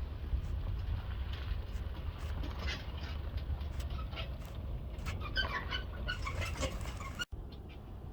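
Small birds chirping in short notes over a steady low rumble, the chirps thickest about five to six seconds in.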